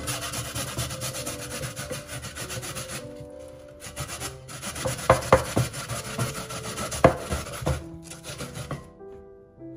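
Raw potato grated on a stainless steel box grater: quick rasping strokes, pausing briefly about three seconds in and again near the end, with a few sharp knocks in the middle.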